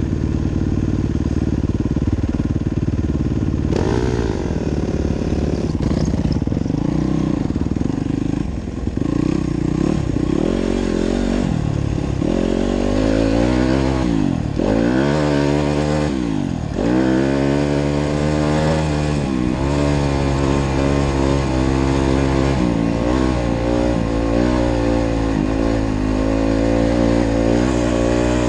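Yamaha dirt bike engine heard from the rider's seat. It runs low at first, then revs and pulls away about four seconds in. Its pitch climbs and drops sharply at each gear change in the middle, then it holds at high revs while riding along.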